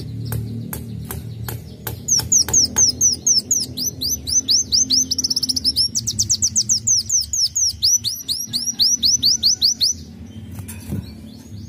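Sunbird singing a fast, unbroken string of high, sharp down-slurred notes for about eight seconds, after a few short clicks. The song stops abruptly near the end.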